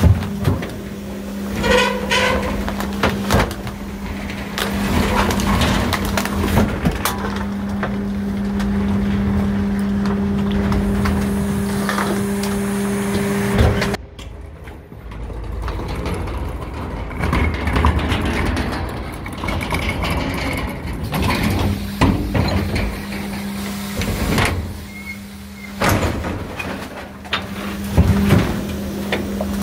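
Rear-loader hopper of an electric garbage truck compacting bags: the hydraulic packer's pump hums steadily and cuts out suddenly about halfway, then comes back in stretches. Scattered knocks and crackles come from refuse bags and cardboard being crushed by the packer blade.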